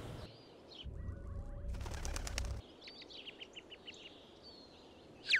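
Quiet cartoon sound effects: a low rumble for under two seconds, then a run of short high chirps, and a quick falling whistle near the end.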